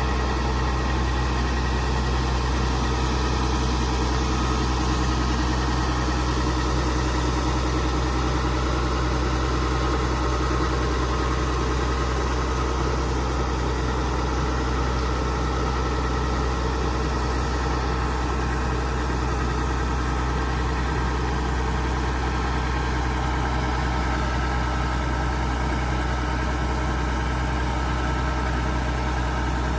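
Kubota DC70pro combine harvester's diesel engine running at a steady speed, with its machinery humming evenly and no change in pitch or level.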